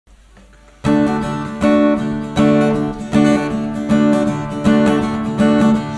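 Acoustic guitar strumming chords in a steady rhythm as a song's introduction, starting about a second in with a stroke roughly every three quarters of a second.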